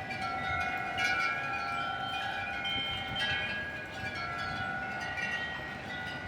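Wind chimes ringing in the wind: several overlapping tones, struck afresh every second or so and left to ring on.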